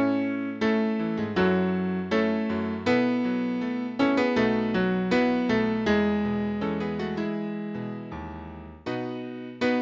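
Piano playing an instrumental passage of a slow gospel song: chords struck about once or twice a second, each ringing and fading, over held bass notes. No singing.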